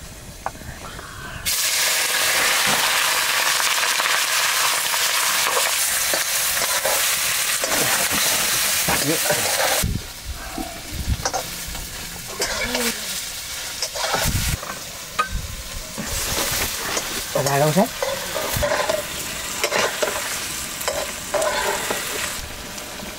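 Food frying in hot oil in a cooking pot: a loud, even sizzle starts suddenly about a second and a half in and cuts off abruptly near the middle. After that comes quieter frying, with the knocks and scrapes of stirring.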